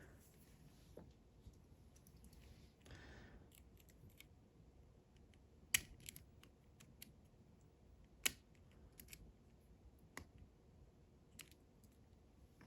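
Faint, sparse metallic clicks and small scrapes of hand tools working at a C-clip on a lock plug, with a few sharper ticks several seconds apart.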